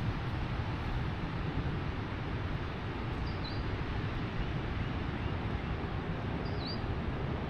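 Steady wind rumbling on the microphone, with a bird giving a short high chirp twice, a few seconds apart.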